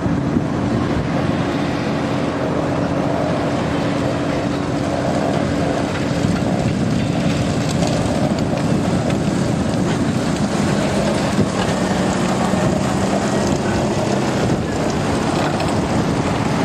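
Tracked over-snow carrier's engine running steadily while it tows an artillery gun on skis, with wind buffeting the microphone. The engine's steady hum drops to a lower pitch about ten seconds in.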